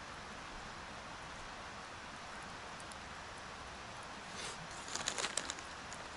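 Steady rush of flowing river water, with a short run of rustling clicks a little past the middle.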